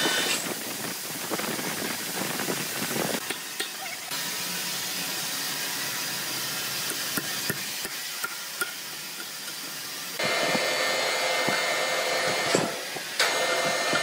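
Sawmill work noise: a few sharp hammer knocks against a steady hiss, then from about ten seconds in the louder, steady whine of a large horizontal band sawmill running at the log.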